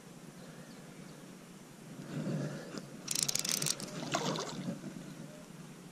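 Hooked carp splashing and thrashing at the water's surface, in a loud burst about three seconds in and again about a second later.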